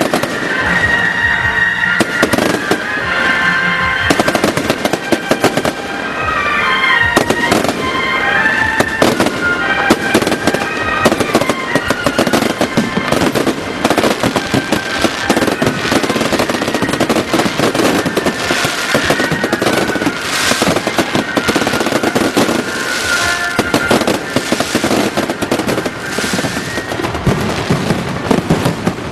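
A massed barrage of bottle rockets and firecrackers from a beehive fireworks rack: continuous rapid crackling and popping, with many shrill rocket whistles that are thickest over the first dozen seconds.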